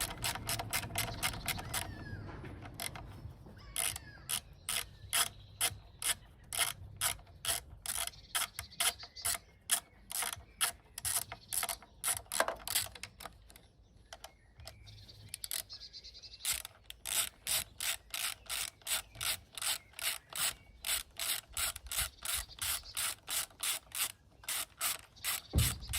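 Quarter-inch drive ratchet with a long extension and 8mm socket, clicking steadily at about two clicks a second as it backs off the fasteners holding the carburetor on a Honda 8hp four-stroke outboard. The clicking pauses for a couple of seconds about halfway through, then resumes.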